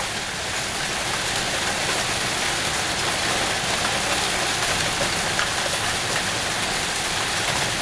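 Heavy hail pelting a wooden deck and fence in a dense, steady, loud racket.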